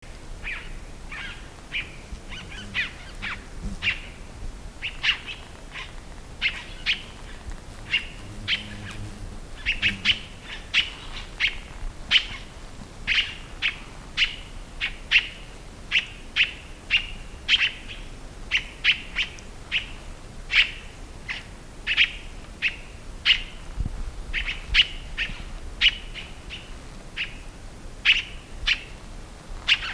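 Scarlet-throated tanager (tiê-caburé) calling: a long series of short, sharp notes, one or two a second.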